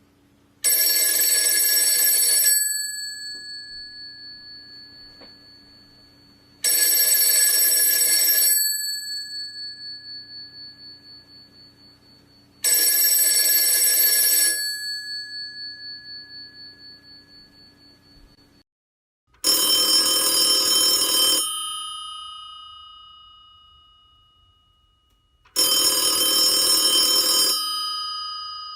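Old telephone bell ringing in bursts of about two seconds, each left to fade out, three rings about six seconds apart. After a cut, a different-sounding phone bell rings twice more in the same pattern.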